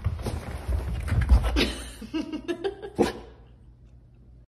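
A person laughing softly in short quick pulses, over rustling and rumbling from the phone being handled. It dies away about three seconds in.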